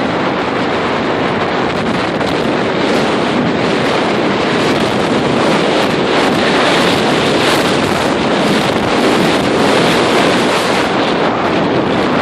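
Gale-force wind, around 70 mph, buffeting the microphone in a loud, steady rush, with rough lake waves surging beneath it.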